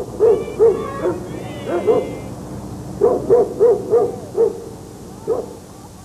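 An owl hooting: several series of short hoots in quick succession, two near the start and a run of five about three seconds in. A brief wavering high tone sounds early on alongside the hoots.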